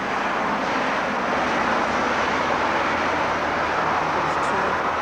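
Motor vehicle going by: a steady rush of engine and road noise with a low hum under it, having built up just before and holding level.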